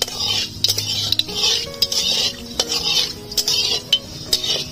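Steel spatula scraping and stirring around an aluminium kadai in repeated strokes, about one every half second, as nigella (kalo jeere) seeds sizzle in hot mustard oil. The strokes stop shortly before the end.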